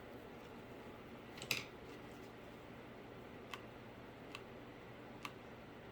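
A few short, sharp clicks from handling tools and materials, the loudest about a second and a half in and three fainter ones later, over a steady low hum of room tone.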